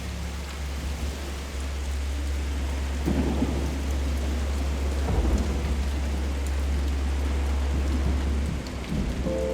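Steady rain falling, with a long, low rumble of thunder rolling under it. Electric piano notes come back in at the very end.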